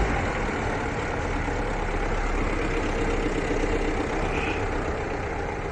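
Tata Harrier rolling along with a steady scraping noise from a wheel's brake: a nail lodged in the brake pad is rubbing against the brake disc.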